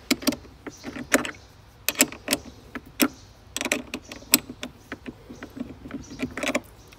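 Small spanner clicking and clinking against the nut and clamp of a car battery's negative terminal as it is tightened: irregular sharp metal clicks, some in quick pairs.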